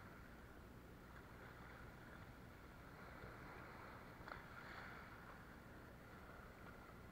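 Faint, steady wash of sea water against shore rocks, with a single soft click about four seconds in.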